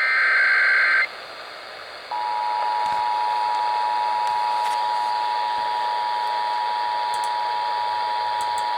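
The last burst of an Emergency Alert System SAME digital header, a harsh warbling data tone lasting about a second, then a second of radio hiss, then the EAS two-tone attention signal (853 and 960 Hz together) held steady for the rest. All of it comes through a radio receiver with a constant bed of static hiss.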